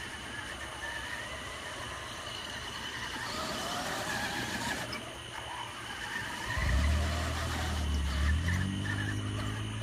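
Remote-control toy car's electric motor whining as it is driven back and forth, with pitch glides as it speeds up and slows. About two-thirds of the way through, a louder low drone starts abruptly as the car runs close by. A steady high-pitched hum lies underneath.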